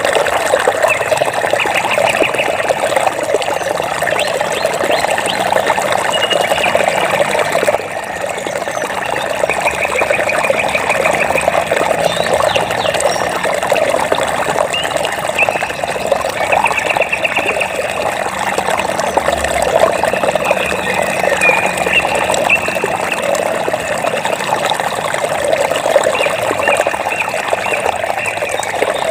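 Steady trickling and babbling of flowing water, like a small stream, with short high trills of small animals now and then.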